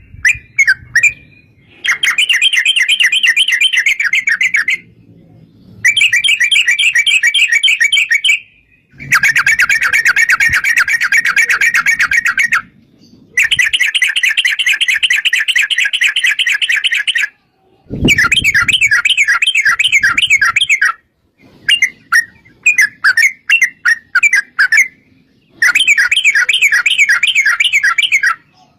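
Yellow-vented bulbul (trucukan) singing long, rapid rolling phrases of quick repeated chirping notes. About seven phrases of two to four seconds each, with short pauses between them. This is the 'ropel panjang' (long roll) song of a bird in full voice.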